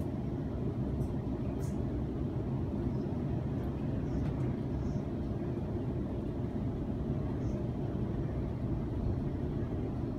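Steady low rumble of a Sydney Trains Waratah A-set electric train running along the line, heard from inside the passenger carriage, with a few faint clicks.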